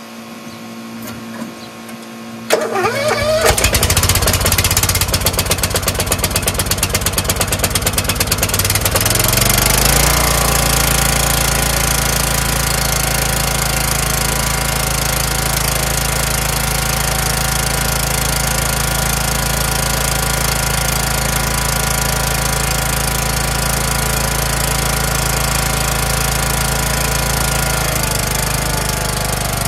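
Craftsman LT1000 lawn tractor engine starting about two and a half seconds in and running with a fast, regular firing pulse. About ten seconds in it speeds up, then runs steadily at the higher speed, dropping slightly near the end.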